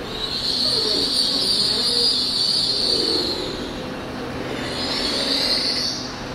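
TransPennine Express Class 802 train rolling slowly through the platform, its wheels squealing high-pitched in two long spells, the first for about three seconds and the second near the end, over the low rumble of the moving train.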